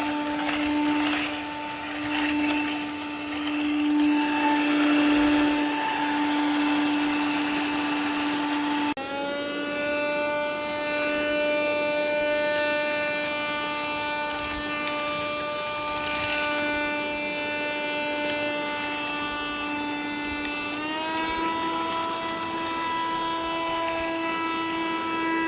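Cordless handheld dust-mite vacuum cleaner running, its motor whining steadily. A rushing suction noise stops suddenly about nine seconds in, leaving a cleaner whine that rises slightly in pitch near the end.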